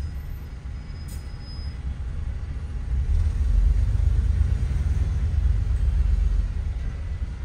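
Bus engine and road rumble heard from inside the bus, a steady low drone that swells louder about three seconds in and eases off near the end.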